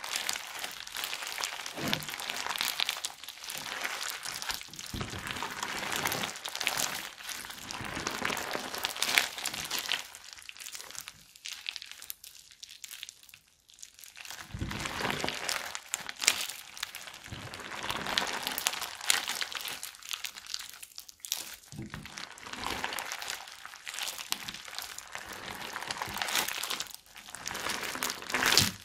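Crunchy slime full of beads and cut plastic straw pieces being squeezed and kneaded by hand, giving dense crackling and crunching, with a quieter pause about halfway through.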